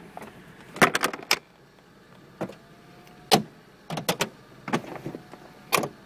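A series of sharp clicks and knocks, about eight spread unevenly, some in quick pairs, as the ignition key of a Mercedes R129 500SL is turned off, pulled out and turned back on to reset the soft-top system.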